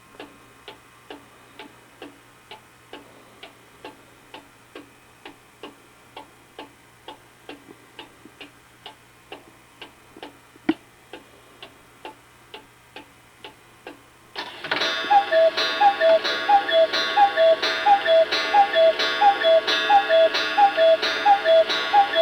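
Vintage cuckoo clock ticking steadily, about two ticks a second. About two-thirds of the way through it starts striking twelve: its two-note cuckoo call, high then low, repeats about a dozen times over a ringing strike.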